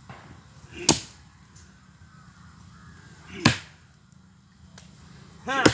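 Axe chopping into the roots at the base of a sheesham tree: three heavy blows about two and a half seconds apart, the last with a short vocal grunt.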